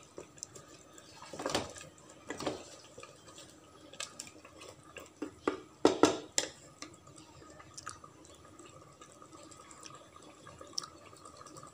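Spatula stirring chicken pieces in a thick gravy in a pot: soft wet stirring with scattered knocks of the spatula against the pot, a cluster of them about six seconds in.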